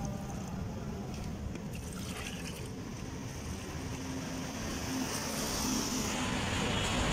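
Lemonade pouring from a drinks cooler's tap into a plastic jug, over a steady low rumble of road traffic. A brighter hiss builds near the end.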